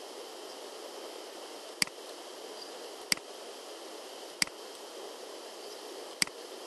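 Four sharp computer mouse clicks, evenly spaced about a second and a quarter apart, over a steady microphone hiss.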